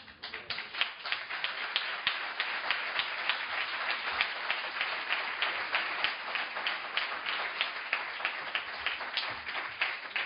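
Audience applauding: many hands clapping, starting at once and keeping up steadily, with single sharp claps standing out.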